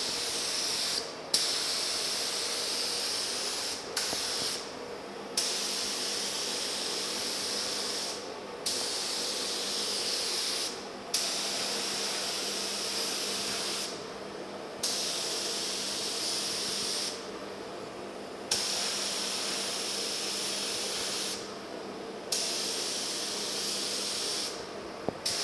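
Gravity-feed paint spray gun spraying clear coat: a hiss of air and atomised clear in repeated passes of two to three seconds. Each pass starts with a short louder burst as the trigger is pulled and stops in a brief pause as it is released, about eight times.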